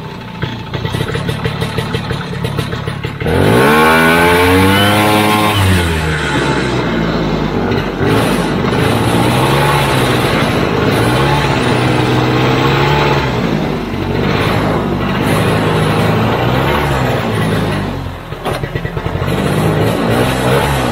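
Vintage AMF Ski Daddler snowmobile's single-cylinder JLO two-stroke engine under way. It runs unevenly at low speed for about three seconds, then jumps up with a rising note, eases back and runs steadily, dropping off twice briefly as the throttle is let off and opened again.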